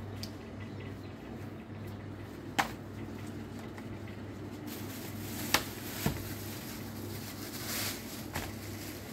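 Thin plastic shopping bags rustling and crinkling as groceries are handled and packed, with three sharp knocks of items set down on a shop counter, over a steady low hum.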